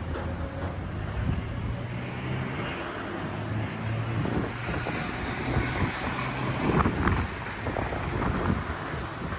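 Street ambience with a motor vehicle's engine running, a steady low hum that fades out about seven seconds in, and wind buffeting the microphone.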